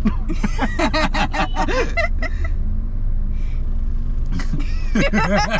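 Steady low rumble of a moving car heard from inside the cabin, with voices talking over it in the first couple of seconds and again near the end.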